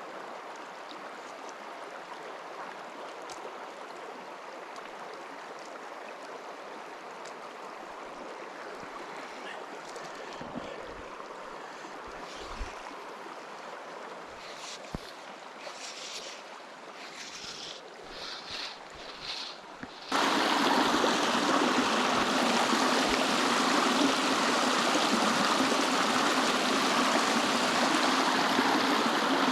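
A small river's current running steadily. A few light knocks and splashes come through in the middle. About twenty seconds in, the rushing water abruptly becomes much louder and stays that way.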